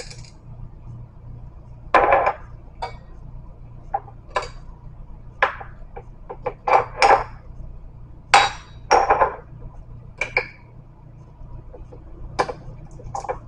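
Table knife prying and tapping at the sealed top of a small glass spice jar: a dozen or so irregular sharp clicks and knocks, a few of them longer and scraping.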